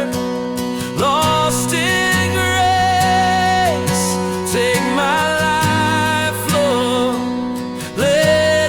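Background music: a slow acoustic worship song, its melody notes held and sliding up into new pitches a few times.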